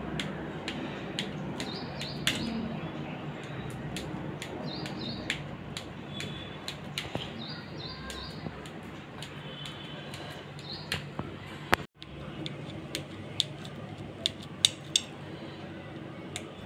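A steel knife cutting through a soft steamed gram-flour cake, its blade tapping and scraping against a steel plate in scattered light clicks.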